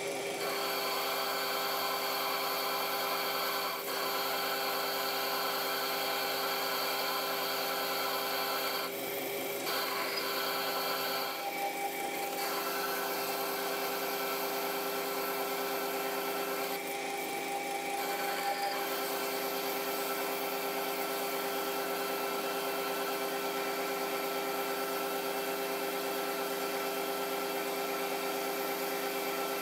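Metal lathe parting off a turned bar with a parting tool under coolant: a steady run of machine whine and cutting hiss, dipping briefly a few times as the cut goes on.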